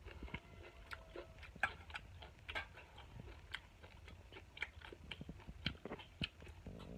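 A person chewing a mouthful of buffalo meat curry close to the microphone, with a scatter of small, irregular wet clicks and smacks of the mouth.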